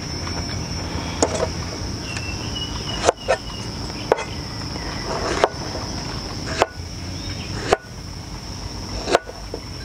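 Chef's knife chopping a round Thai eggplant on a plastic cutting board: about eight sharp knocks at uneven intervals of roughly a second, over a steady high insect drone.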